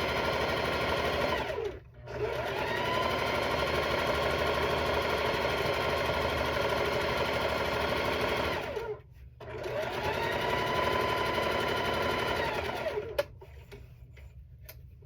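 Electric sewing machine stitching a seam in three runs: the motor speeds up at each start, runs steadily, and winds down at each stop, with short pauses about two and nine seconds in. A sharp click follows the last run, about two seconds before the end, after which the machine is still.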